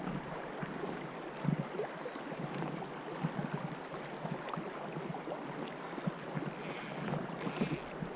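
River water flowing with wind buffeting the microphone in irregular low thumps. Two short hissing sounds come near the end.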